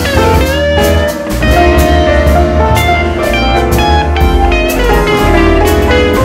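Background music: guitar over drums with a steady beat.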